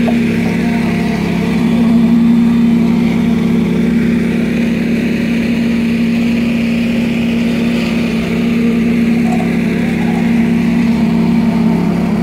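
Small petrol engine of a concrete poker vibrator running steadily at a constant pitch, driving the vibrating poker in wet concrete.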